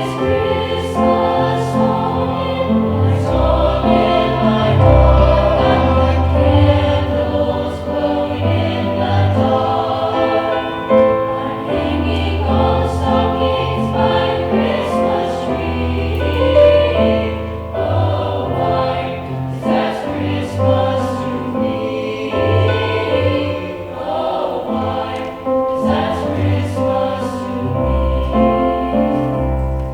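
A high school choir singing with instrumental accompaniment, sustained choral chords over held low bass notes.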